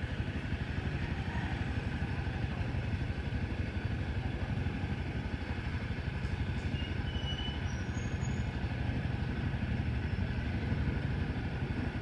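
Heavy engine running steadily, a constant low rumble with no change in speed.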